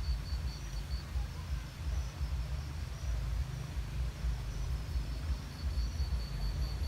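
Low, uneven outdoor rumble, with a high chirp repeating about four times a second that breaks off about a second in and comes back near the end.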